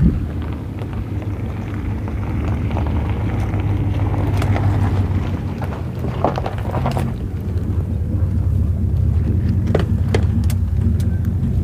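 An engine running at a steady idle, with scattered crunches and clicks of footsteps on gravel and twigs.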